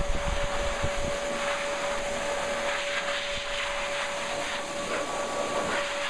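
A dog blow dryer running steadily: air rushes from the hose nozzle over a constant whine from the motor.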